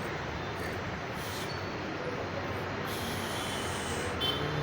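Steady background noise, an even hiss and rumble with no distinct events, and a man's voice faintly humming near the end.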